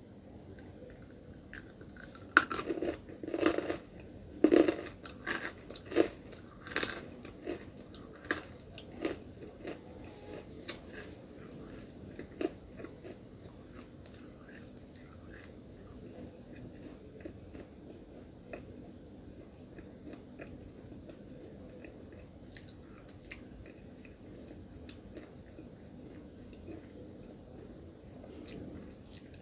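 A chunk of white, chalky nakumat bitten and crunched between the teeth: a few loud, crisp bites about two seconds in, then a run of sharper crunches that thin out over the next ten seconds. After that comes softer, quieter chewing as the piece is ground down.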